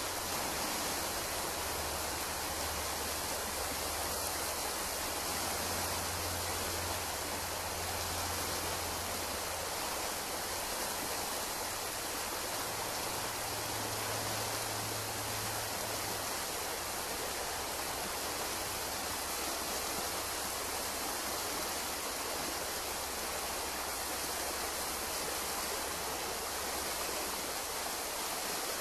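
Shallow forest stream running over a rocky bed: a steady, even rush of water.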